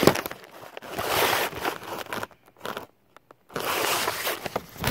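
Rustling and scraping handling noise: a sharp knock at the start, then two long bursts of scraping, with a near-silent gap in the middle.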